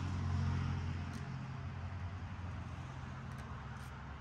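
A motor vehicle engine running, a steady low hum that slowly fades, under a soft hiss.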